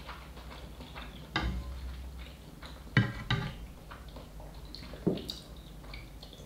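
Wooden chopsticks knocking and scraping against a frying pan full of instant noodles, a few sharp clicks with the loudest pair about three seconds in, between quiet chewing.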